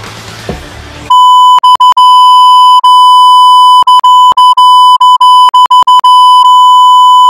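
A loud, steady, high-pitched bleep tone, edited into the soundtrack, begins about a second in and runs on, broken by a dozen or so very short gaps; before it, a second of room noise with a soft thump.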